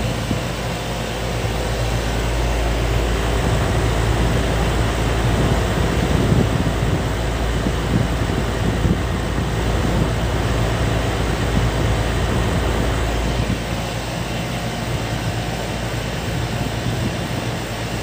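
The outdoor unit of a 5-ton ducted air conditioner running under refrigerant charge, its compressor and condenser fan making a steady hum and rush of air. A heavier low rumble swells through the middle and eases off near the end.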